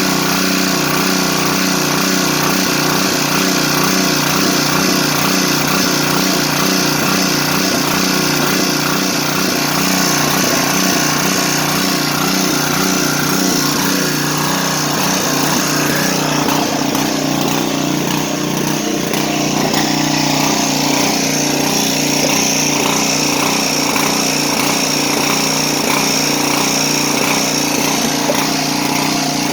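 The small gasoline engine of a 1980s Craftsman riding lawn tractor running steadily at full throttle, left to run until it burns off the fuel still in the lines and carburetor. Its note shifts a little about sixteen seconds in.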